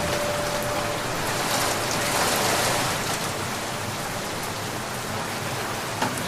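Rain falling steadily, a dense, even hiss of drops with no thunder.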